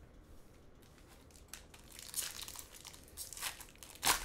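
Foil trading-card pack being torn open and crinkled by hand: quiet for about a second and a half, then irregular crackling and ripping of the foil wrapper, with the loudest rip near the end.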